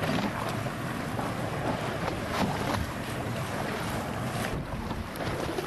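Wind buffeting the microphone over choppy sea, with water sloshing and splashing now and then.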